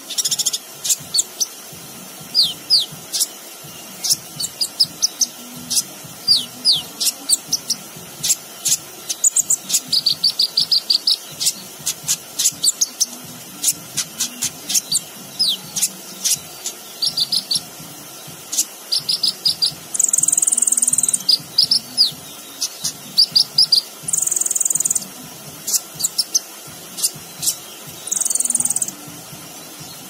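Male Van Hasselt's sunbird (kolibri ninja) singing a rapid, varied song of sharp chips, short downward-sweeping whistles and quick runs of repeated notes, filled with phrases mimicked from other birds and insects. In the second half it gives three buzzy, insect-like passages of about a second each.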